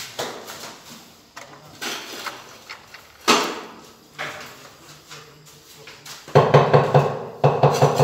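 Floor tiling work: a trowel scraping and tapping in mortar and on ceramic tiles, with one sharper knock about three seconds in. About six seconds in, music with a steady, pounding beat starts and drowns it out.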